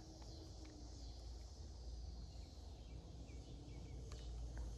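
Faint outdoor ambience: a steady high hiss of insects, with a low rumble underneath.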